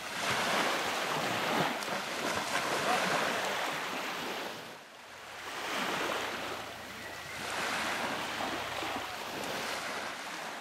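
Sea waves breaking and washing up a sandy beach. The hiss of the surf swells and fades every few seconds, dropping away briefly about halfway through.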